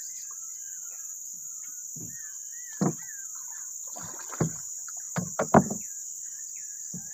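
A handful of short, hollow knocks and thuds against a small wooden boat as a pole is worked alongside it, the loudest a little past the middle. Under them runs a steady high insect drone, with scattered bird chirps.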